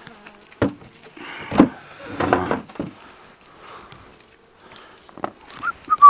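Wooden beehive parts knocking as they are handled, a few separate knocks, with a short voice-like sound in between. A steady whistled note starts near the end.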